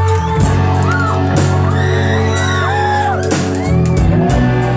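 Live rock band playing: electric guitars, bass, keyboard and drums with a lead singer's voice over them. The bass changes note shortly after the start and again near the end.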